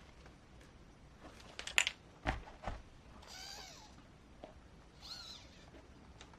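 A domestic cat meowing twice, two short calls whose pitch rises and falls, about a second and a half apart. A few sharp clicks come just before the first meow.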